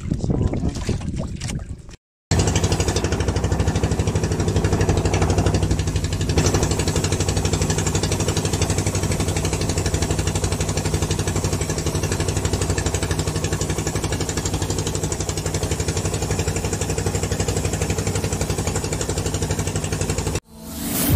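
Brief splashing and handling of water for the first two seconds, then a small outrigger fishing boat's engine running steadily with an even low hum until a cut near the end.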